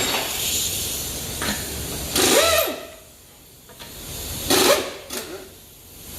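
Pneumatic impact wrench running in short bursts on a car's wheel lug nuts, with air hissing. The loudest burst comes about two seconds in, another just before five seconds.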